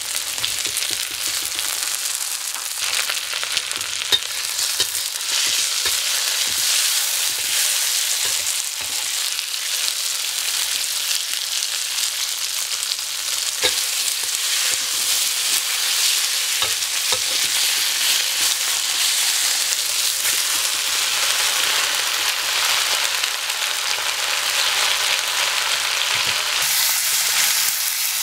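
Sliced garlic, onion, red chilies and tomato sizzling in hot oil in a stainless steel wok as they are stir-fried until wilted, with a few sharp clicks of the utensil against the pan.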